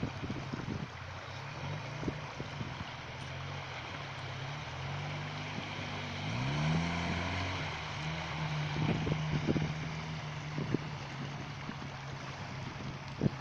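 Land Rover Discovery's engine running under load while wading through deep water, with water rushing and sloshing around it. The engine rises in pitch about six seconds in as it is revved, with a few knocks along the way.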